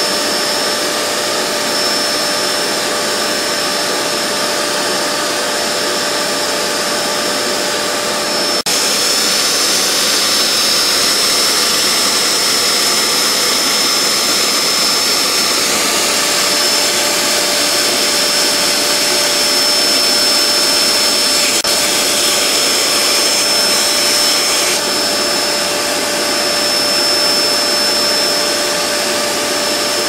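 Vacuum cleaner running steadily: a constant whine over the rush of sucked air. About eight and a half seconds in it drops out for an instant and comes back slightly louder and brighter.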